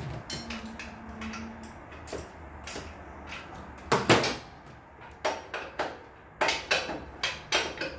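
Hand tools on a motorcycle's rear axle nut and belt adjusters: wrenches and sockets clinking and knocking on metal as the adjusters are loosened and tightened. There is one loud metal clank about four seconds in, followed by a run of sharp clicks.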